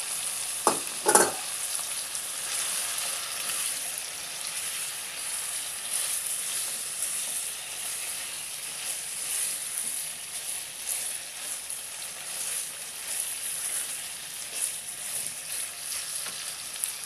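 Oil sizzling steadily in a pan of chicken gizzard and liver curry while cubed potatoes are stirred through it with a silicone spatula. Two short knocks about a second in.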